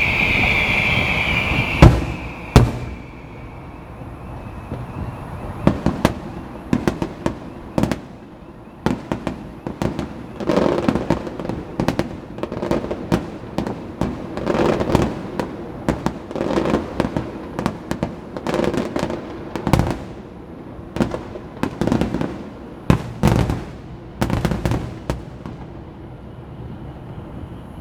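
Aerial fireworks display. It opens with a whistle falling in pitch, then a long run of irregular bangs and pops, the two loudest just after the whistle and the densest volleys in the middle.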